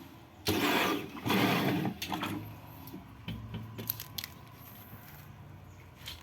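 Semi-automatic screen-printing machine for plastic going through a print cycle: two loud noisy strokes of about half a second each, followed by a few light clicks.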